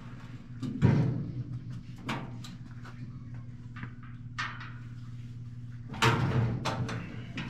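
Sheet-metal cabinet of an Empire RH-35 vented gas heater being shifted and set into place by hand. There is a loud knock about a second in, a few lighter knocks, and a longer scraping clatter near the end, over a steady low hum.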